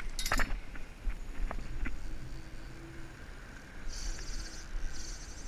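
Wind buffeting the microphone in a low rumble, with a sharp knock and rattle of handling just after the start. About four seconds in, a high, rapid buzz starts and runs in two stretches.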